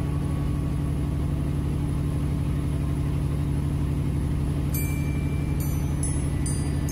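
Engine and road noise droning steadily inside a vehicle cab at highway speed. Faint high tones come in near the end.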